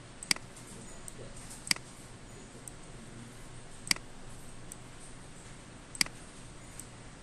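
Computer mouse button clicking: four sharp single clicks spaced a second or two apart, with fainter ticks between them.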